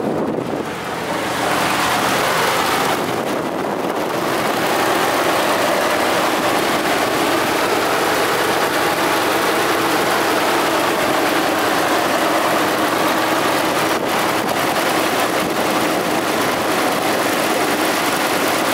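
2013 Ram 1500 pickup's engine idling steadily, heard close up at the open engine bay.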